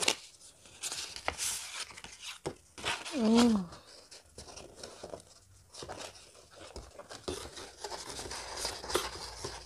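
Paper envelope and card being handled inside a cardboard box: scattered rustles, crinkles and small taps. A brief murmur of a voice comes about three seconds in.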